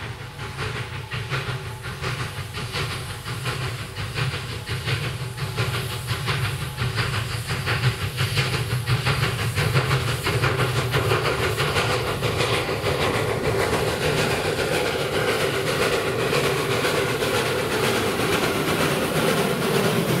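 Narrow-gauge steam train approaching and running past, with steam hissing and wheels clacking over the rail joints. It grows louder over the first half and then holds steady.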